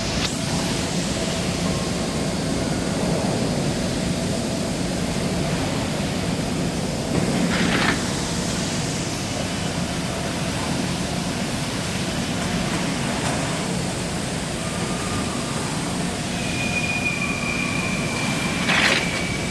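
Amada CNC punching machine running with a steady mechanical hum and noise, with two sharp bangs, one about eight seconds in and one near the end, and a thin high whine in the last few seconds.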